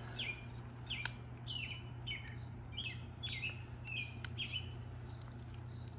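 A small bird chirps over and over, short high chirps that slide down in pitch, about two a second, and stops about four seconds in. A couple of sharp clicks fall between the chirps.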